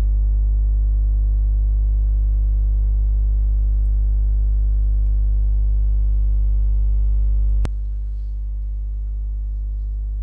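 Loud, steady electrical mains hum: a low buzz with many overtones. A sharp click comes about three-quarters of the way through, after which the hum carries on a little quieter.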